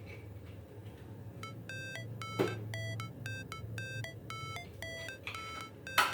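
Background music: a melody of short high notes in a quick, even rhythm, starting about a second and a half in. Two sharp clicks stand out over it, one in the middle and one near the end.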